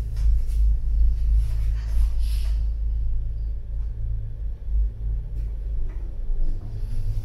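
Steady low rumble of a moving passenger cabin on a mountain ride, heard from inside.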